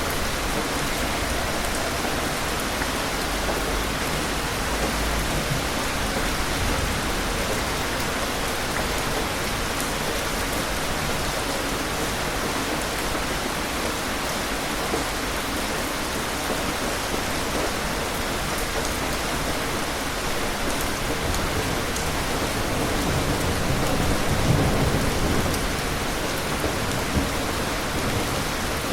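Steady heavy rain falling, with distant thunder rumbling low underneath; the clearest rumble swells near the end.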